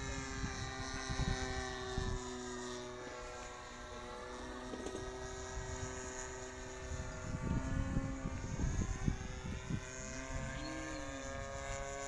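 DLE 20cc single-cylinder two-stroke gasoline engine of a radio-controlled Rans S-20 Raven model plane running in flight overhead: a steady propeller drone over a low rumble. Its pitch sags a few seconds in and drifts back up as the plane moves across the sky.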